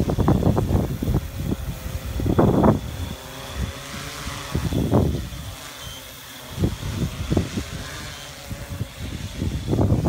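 Gusty wind buffeting the microphone in uneven low rumbles, over the faint steady whine of a Yuneec Q500 quadcopter's propellers hovering close by.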